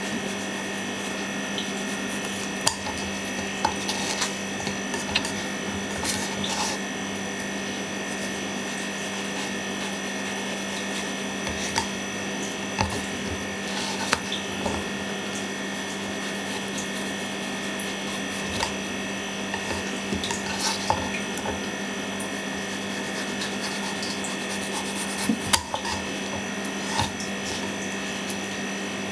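Kitchen knife cutting cucumber on a wooden cutting board: scattered, irregular crisp cuts and taps of the blade against the board. A steady electrical hum runs underneath.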